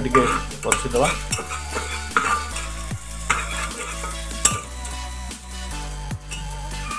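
A metal spatula stirring sliced onions frying in an aluminium pressure cooker pot: a steady sizzle with irregular scrapes and clinks against the pot's sides. Background music with a steady bass plays underneath.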